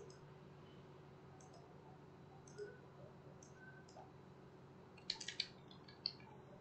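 Computer keyboard typing: a quick run of four or five keystrokes about five seconds in and one more a second later, as a word is typed into a text field. Faint scattered clicks come before it, over a low steady hum.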